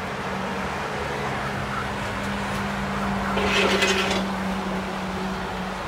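Outdoor road-traffic background: vehicles moving on a nearby road over a steady low hum, louder for about a second around three and a half seconds in.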